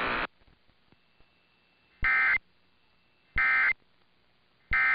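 Emergency Alert System end-of-message data tones: three short, identical bursts of two-tone digital warble, about a second and a half apart, signalling the end of the alert. A louder sound cuts off just after the start.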